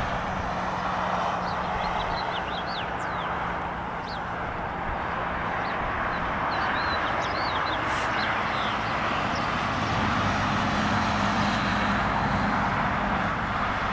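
Steady drone of a distant engine with a low hum, with small birds chirping on and off above it.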